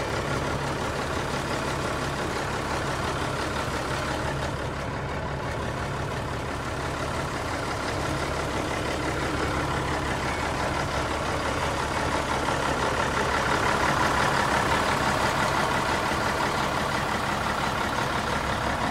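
1982 Mack cab-over truck's Mack diesel engine idling steadily, getting a little louder about two-thirds of the way through.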